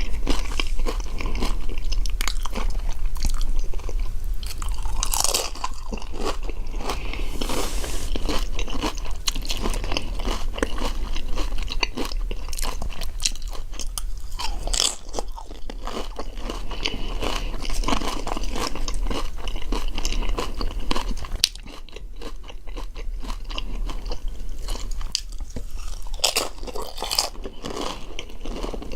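A person eating loaded nachos close to the microphone: continuous irregular crunching of tortilla chips as they bite and chew.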